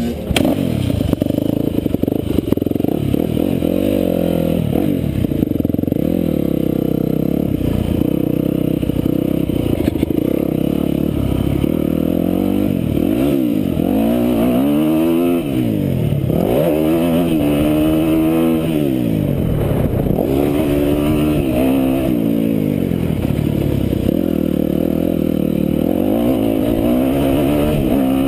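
A 2006 Yamaha YZ250F's 250cc single-cylinder four-stroke engine, heard close up from a handlebar camera, revving up and down over and over as the dirt bike accelerates, shifts and backs off around a motocross track. The rises and falls in pitch come quickest about halfway through.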